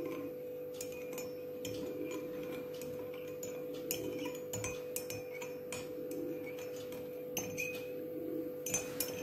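Metal teaspoon stirring honey into tea in a ceramic cup, clinking irregularly against the cup's sides, over a steady hum.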